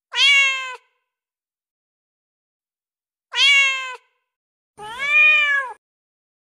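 Cat meowing three times: two short, alike meows, the first right at the start and the second about three seconds later, then a longer meow that rises and falls in pitch.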